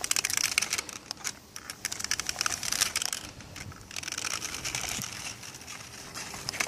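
Remote-control golf buggy driving off, its wheels crunching over the ground with a run of irregular crackles and clicks.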